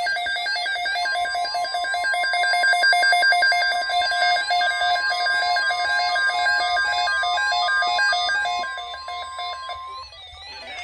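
Emergency alert tone of the NOAA Weather Radio kind: one steady, piercing tone held for about nine seconds, with rapid electronic chirping and warbling tones layered over it. All of it cuts off about a second before the end.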